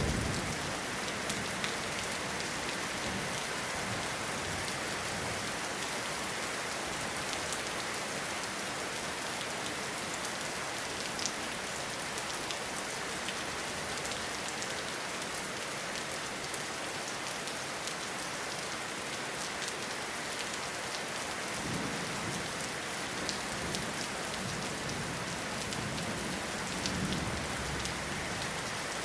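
Steady rain falling in a forest, an even dense hiss with a few distinct drips. The tail of a thunder rumble dies away at the very start, and faint low rumbles come twice in the second half.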